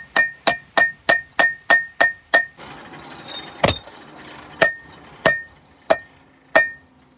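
Rounding hammer striking a white-hot, fluxed damascus billet of 1084 and 15N20 steel on a steel anvil to forge-weld the layers. There is a fast run of about three ringing blows a second, then a pause with one heavier blow, then slower, spaced blows, each leaving a short metallic ring.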